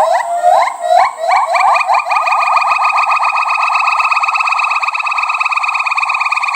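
A primate calling: a run of short rising whistle-like notes that quickly speed up and merge into a fast, steady trill.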